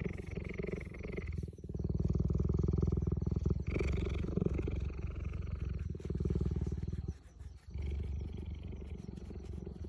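Cheetah purring as its chin is scratched: a steady, deep purr that runs in long stretches, one for each breath in and out, with a brief pause a little after seven seconds in.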